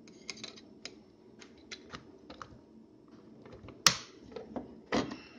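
Plastic battery cover of a Haier air-conditioner remote being slid on and snapped shut, a series of small plastic clicks and taps, with the sharpest click about four seconds in and another about a second later.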